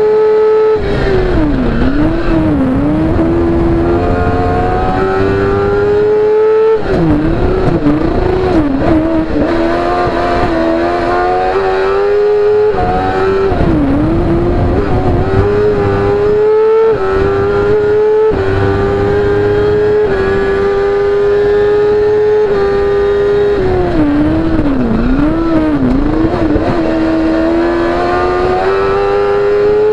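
BRC CM05 Evo prototype race car's engine, heard from the cockpit, pulling hard with revs climbing steadily and falling sharply at upshifts, about 7 and 13 seconds in and near the end. Four times the pitch dips and wavers down and back up as the car brakes and downshifts for corners.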